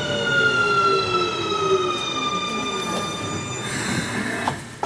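Siemens IGBT-VVVF inverter and traction motors of a Keikyu New 1000 series train whining in several tones that slide steadily down in pitch as the train slows. The tones cut out about three and a half seconds in, leaving a hiss.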